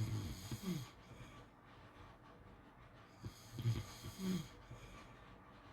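Pit bull snoring in its sleep: two snores, one at the start and one about three and a half seconds in, each a low buzz ending in a short falling whistle.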